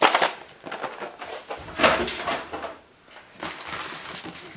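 Boxed sets of water-soluble crayons being picked up and moved across a table, their cardboard-and-plastic packaging rustling and bumping in three short bouts: at the start, about two seconds in, and near the end.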